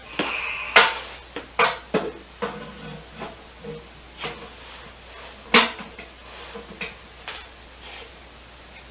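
Irregular metallic clanks and scrapes of a starter motor being worked into place against the bellhousing of a Dodge 360 V8 and 727 automatic transmission, with the sharpest knocks a little under a second in and about five and a half seconds in.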